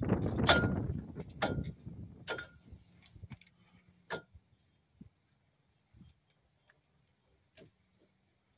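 A loud burst of handling and rustling, then a few sharp metallic clinks with a short ring, and faint scattered ticks: metal parts and bolts handled by hand at a car's front wheel hub.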